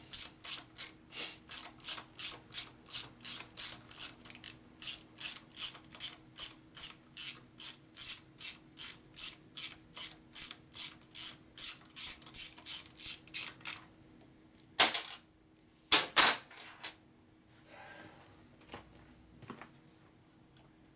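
Hand ratchet wrench clicking steadily, about three clicks a second, as it is worked back and forth; the clicking stops about two thirds of the way in. Two short noises follow a second or so apart.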